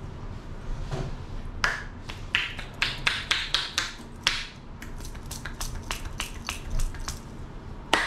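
Rapid percussive taps of a barber's palms, pressed together, striking the scalp in an Indian head massage. Each stroke is a sharp clap-like pop, coming about four a second in an uneven run that starts about a second and a half in and thins out near the end.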